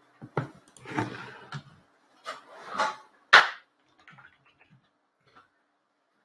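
Computer keyboard keys and mouse buttons clicking at a desk: about six separate taps over three and a half seconds, the loudest about three and a half seconds in, then a few faint ticks.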